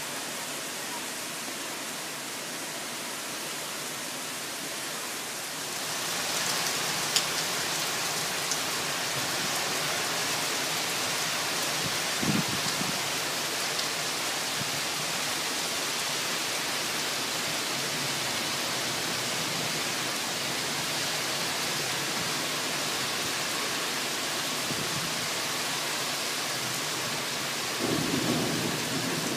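Thunderstorm downpour: a steady hiss of heavy rain that grows louder and brighter about six seconds in as the rain sets in hard, with a sharp tick soon after. Short low rumbles of thunder come about twelve seconds in and again near the end.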